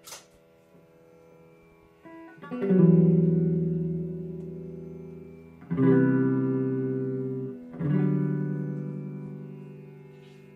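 Background guitar music: three chords struck a few seconds apart, each left to ring out and slowly fade.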